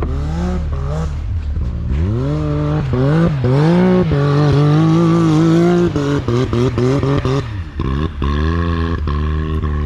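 Side-by-side UTV engine revving under throttle. Its pitch climbs about two seconds in and holds high for several seconds, then falls and comes back in short blips, dips briefly near the end and climbs again.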